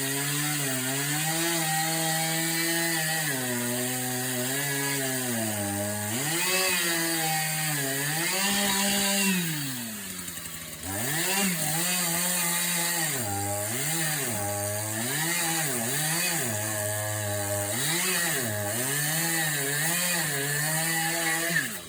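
Two-stroke chainsaw cutting into a thick tree, its engine pitch sagging and recovering as the chain bites into the wood. Near halfway the engine briefly drops back, then rises and falls in quick swings until the level drops suddenly at the end.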